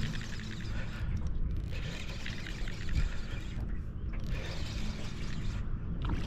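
Fishing reel being cranked in three spells with short pauses between, its gears whirring and clicking as a hooked bass is reeled in.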